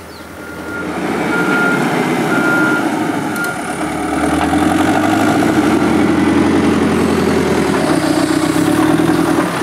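CAT backhoe loader's diesel engine running under load as it lifts and tips a bucket of sand, getting louder about four seconds in. A back-up alarm beeps several times in the first few seconds.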